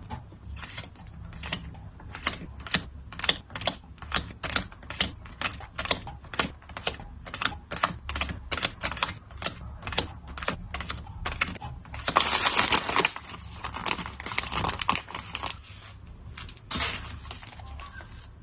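Hands packing photo cards: a long run of quick, sharp plastic taps and clicks, about two to three a second, like typing. About two-thirds through, a few seconds of denser crinkling of plastic packaging, and another short rustle near the end.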